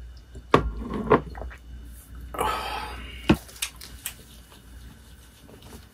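A few sharp knocks and clicks, the loudest a little past three seconds in, with a short swishing rustle just before it, over a low steady hum.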